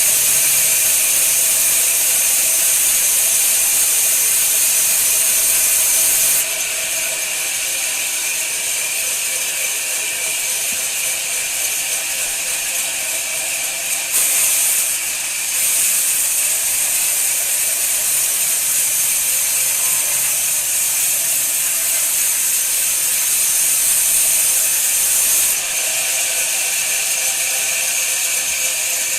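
Woodworking machine cutting wood: a loud, steady high hiss that drops abruptly a few times.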